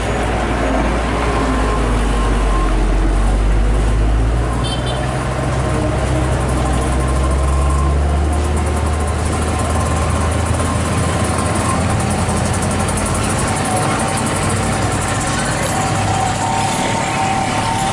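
Road traffic with the heavy diesel engines of a dump truck and a bus running in a low, steady rumble, and motorcycles passing close by.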